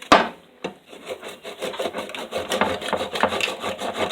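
A kitchen knife striking the lid of a tin can, then sawing back and forth across it in quick rasping metal-on-metal strokes as it works to cut the can open.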